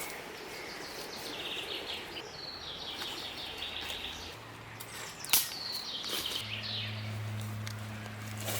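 A bird singing repeated trilled phrases, mixed with scattered sharp clicks and a faint low steady hum that grows louder in the second half. One sharp click a little past halfway is the loudest sound.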